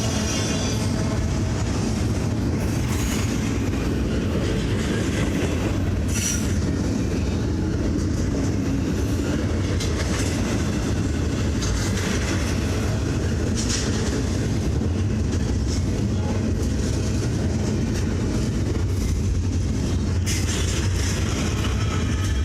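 A Norfolk Southern train's cars rolling past with a steady rolling clatter of wheels on rail. Brief high wheel squeals come a few times.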